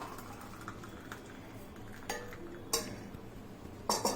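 Metal kitchen utensils clinking and knocking as a boiled herbal decoction is strained into a glass: a few faint clicks, two sharp clinks about two seconds in, and a short cluster of clinks near the end.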